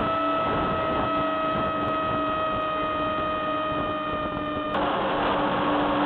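Electric motor and propeller of a small RC flying wing, heard from a camera mounted on the wing: a steady high whine, with wind rushing over the airframe. Near the end the whine suddenly drops lower in pitch and the wind rush grows louder.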